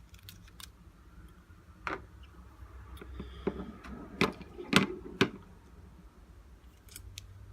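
Small clicks and taps of iPhone parts and small tools being handled on a work surface, about five sharp knocks over a few seconds, over a steady low hum.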